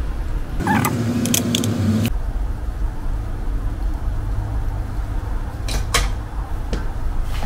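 A metal spoon scrapes and taps flour through a plastic mesh sieve into a plastic mixing bowl over a steady low hum. The scraping comes in a stretch about a second in, with a few light clicks, and a sharp click of the utensils against the sieve or bowl comes about six seconds in.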